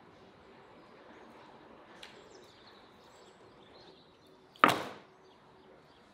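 A whole raw chicken set down in a steel roasting tray: one sharp thud with a short metallic ring, about four and a half seconds in, after a faint click.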